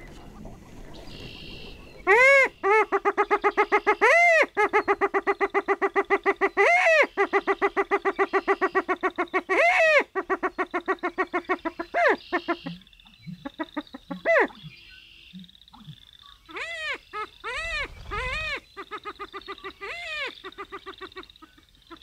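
Greater prairie-chickens calling: a fast, rattling chatter starts about two seconds in and runs for about ten seconds, broken by several loud rising-and-falling whoops. In the second half come a string of shorter whooping calls.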